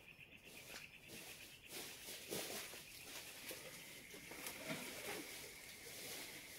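Faint outdoor background: a high trill that turns into a steady thin whistle, with scattered rustling and crackling, loudest in the middle.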